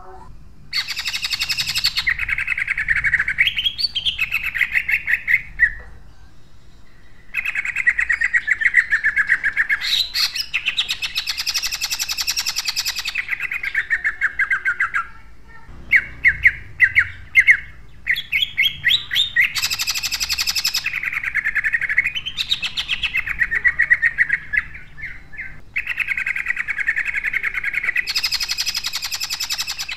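Male green leafbird (cucak ijo) singing its rapid-fire 'tembakan' song: long phrases of very fast, tightly repeated harsh notes lasting several seconds each, broken by short pauses. About halfway through the long phrases give way to a string of separate loud, sharp notes.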